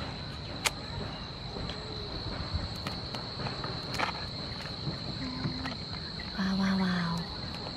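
A steady, high-pitched insect trill runs throughout. Two sharp clicks, about a second in and midway, come as cooked mantis shrimp shells are broken open by hand. Near the end there is a short hummed voice sound, the loudest moment.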